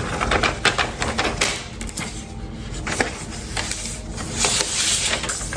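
Packaging being handled during an iPad unboxing: rustling and scratching with many small clicks and taps, and a louder scratchy stretch near the end.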